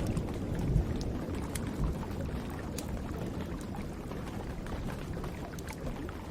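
Wood fire crackling in a fireplace with sparse sharp pops over a steady rain hiss, while a low rumble of thunder fades away over the first couple of seconds.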